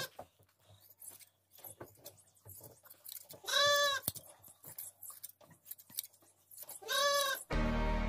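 A sheep bleating twice, two short calls about three and a half and seven seconds in, over repeated crisp snips of hand-held scissors cutting through fleece.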